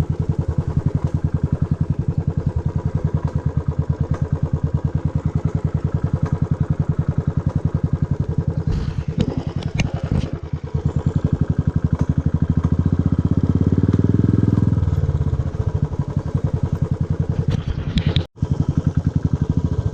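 Motorcycle engine running while riding, with a steady, even pulse. It builds up louder for a few seconds past the middle, with a few sharp knocks about nine to ten seconds in. The sound drops out for an instant near the end.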